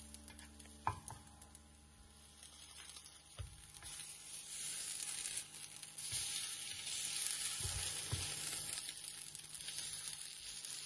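Potato fritter sizzling as it fries in shallow olive oil in a nonstick frying pan, growing louder from about four seconds in as it is turned and pressed with a slotted spatula. A few light knocks are heard over the sizzle.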